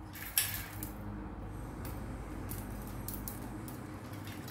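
Metal wire clothes hangers clinking and scraping together as they are handled, with one sharp clink about half a second in and light scattered clicks later, over a steady low hum.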